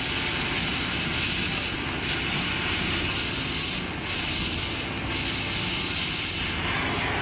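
Oxy-acetylene cutting torch running as it cuts through steel plate: a steady hiss, whose highest part briefly drops three times, about two, four and five seconds in.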